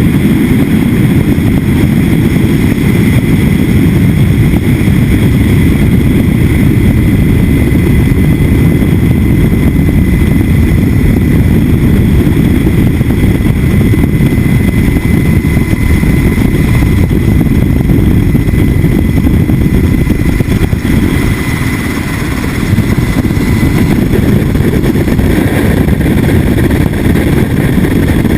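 Sikorsky H-60 Black Hawk helicopter running, a loud, steady, heavy rotor and engine noise with a thin high whine over it, dipping briefly about three-quarters of the way through.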